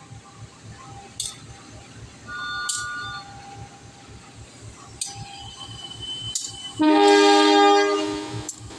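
Train moving through the station with a low rhythmic rumble and occasional wheel clicks. A brief faint two-note toot comes about two and a half seconds in. Near the end a locomotive air horn gives one loud blast of about a second and a half, several tones sounding together.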